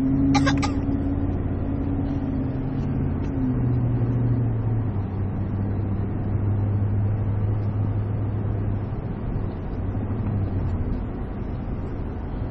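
Car driving at about 30 mph, heard inside the cabin: a steady low engine hum over road and tyre noise, the engine note shifting slightly a few seconds in.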